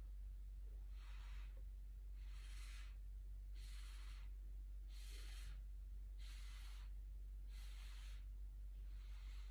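Gentle puffs of breath blown through a flattened paper straw onto wet pouring paint, spreading the paint cells into blooms. About seven faint, breathy puffs come at an even pace, a little more than one a second.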